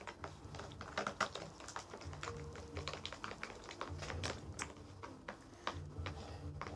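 Rapid, irregular small sticky clicks and crackles of a wet glue slime mixture being worked by hand; the mixture is clumping without turning into slime.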